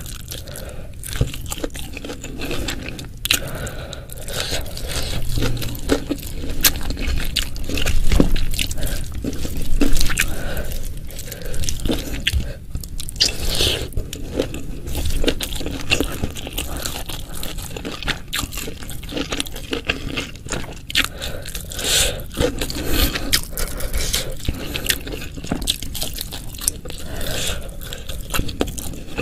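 Close-miked eating sounds: a person biting and chewing food in a continuous stream of small crunches and clicks, with louder crunching bites about eight and ten seconds in.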